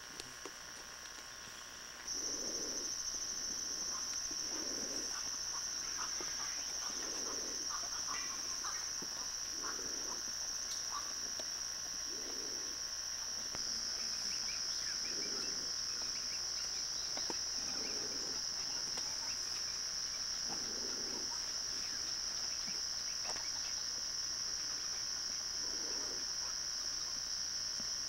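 Steady high-pitched drone of an insect chorus, which grows louder about two seconds in, with a soft low note repeating about every two and a half seconds beneath it.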